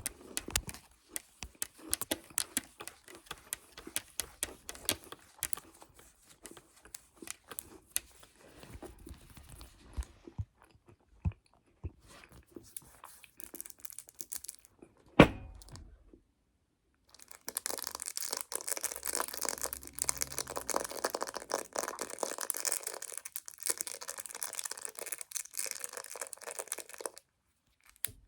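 Close-miked eating of chocolate: crunching and chewing with many small crisp clicks, then a single sharp tap about fifteen seconds in. After that comes about ten seconds of continuous crinkling and tearing of a wrapper, which stops shortly before the end.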